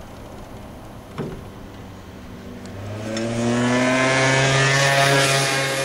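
A motor vehicle's engine passing out of sight, getting louder and rising slightly in pitch from about halfway through, then starting to fade near the end. A single sharp click about a second in.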